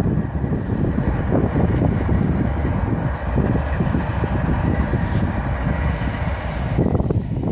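Loaded coal train rolling past close by: a steady low rumble of diesel locomotives pulling under load, mixed with the noise of the wheels on the rails.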